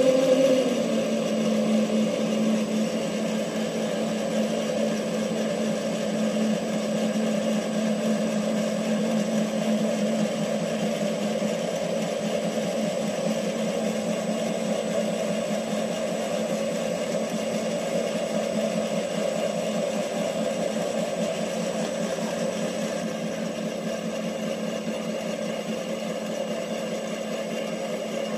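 Small benchtop metal lathe running: a steady motor-and-gear hum with a fine rattle as the chuck spins. It settles to an even pitch in the first second after starting up.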